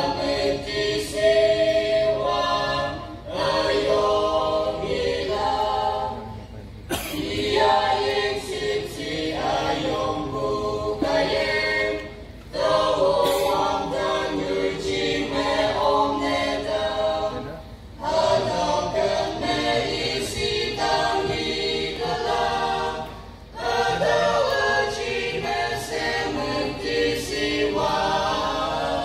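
Mixed-voice youth choir of men and women singing a hymn in parts, unaccompanied. The singing comes in phrases of several seconds, with short breaks for breath between them.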